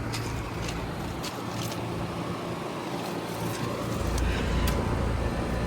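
Outdoor unit of a 3-ton Trane XR14 heat pump running just after start-up: the LG scroll compressor humming under the steady air rush of the condenser fan. A deeper low rumble joins about four seconds in.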